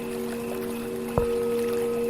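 Tibetan singing bowls ringing in several sustained tones with a slow wavering pulse; about a second in, a bowl is struck and a new, stronger ringing tone starts. A creek's steady running water sounds underneath.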